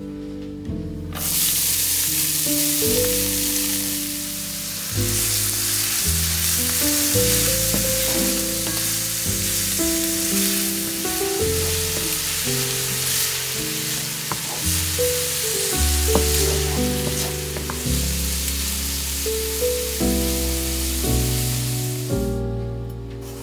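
Diced onion sizzling as it fries in a pan, a dense steady hiss with a few light clicks; it starts about a second in and cuts off near the end.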